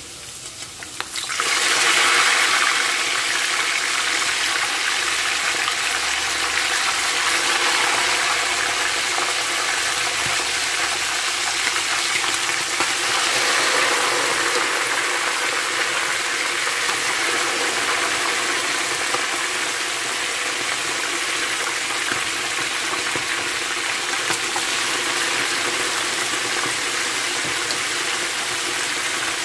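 Pieces of boiled meat deep-frying in very hot oil, the oil sizzling and bubbling up around them. The sizzle starts suddenly about a second and a half in, as the meat goes into the oil, and then holds loud and steady.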